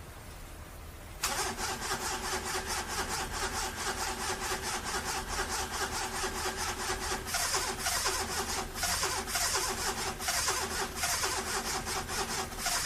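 Car engine cranking on the starter motor without catching, beginning suddenly about a second in: a fast, even chugging of strokes over a steady whine, continuing unchanged. The engine won't start.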